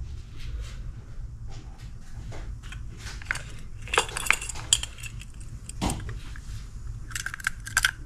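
Hard plastic clicks, taps and rattles from a BURGA case being fitted onto a white AirPods charging case by hand, loudest in a cluster about four seconds in and again in a quick run of clicks near the end.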